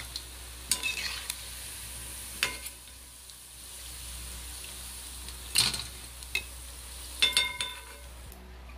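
Onion bhajis sizzling in hot oil in a steel kadhai, with a metal spoon clinking and scraping against the pan several times as the fried fritters are lifted out. The sizzle cuts off near the end.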